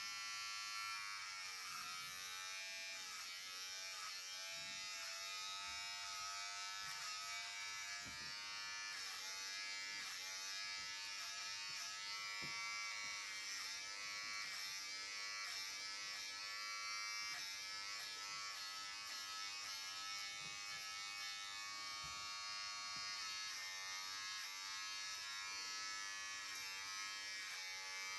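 Electric hair clipper buzzing steadily while cutting a boy's short hair. The hum's pitch dips briefly now and then.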